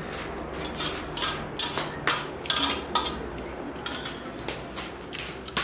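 Stainless-steel plates clinking and scraping during eating, in many short, irregular knocks and scrapes.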